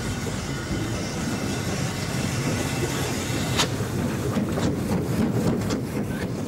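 GWR 4500-class small prairie 2-6-2 tank locomotive passing with a steady hiss and rumble, then its goods wagons rolling by, the wheels clicking over rail joints from a little over halfway, the first click the sharpest.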